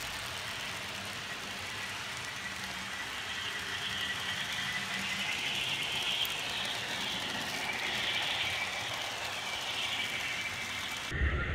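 HO-scale Broadway Limited Paragon 2 model of a Baldwin Centipede diesel locomotive: its onboard sound system plays a steady diesel engine running sound, mixed with the model's running noise on the track.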